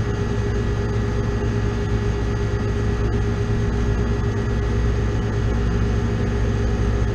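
Air-conditioning condensing unit running: a steady mechanical hum with a constant tone over it.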